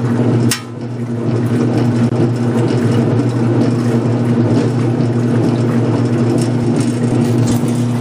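Laundry-room washing machine running, picked up with the phone resting on top of it: a loud, steady motor hum with machine vibration. A single knock about half a second in.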